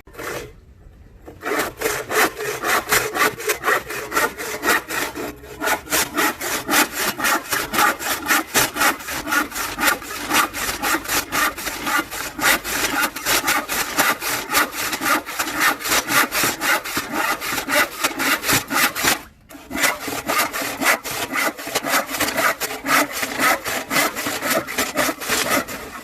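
Handsaw cutting through a piece of lumber in quick, even back-and-forth strokes, with a short pause about nineteen seconds in before the sawing carries on.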